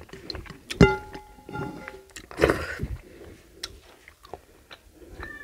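Close-up eating by hand from a ceramic plate: fingers scraping and tapping the plate, with chewing and mouth sounds. About a second in, a sharp clink rings on for over a second, and a shorter ringing clink comes near the end.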